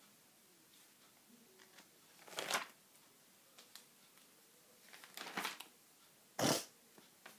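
Plastic sheet-protector pages in a ring binder being turned by hand, three brief crinkling swishes, the last one the loudest.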